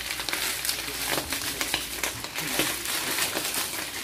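Sardine mixture sizzling in hot oil in an aluminium wok, a steady hiss with many small pops.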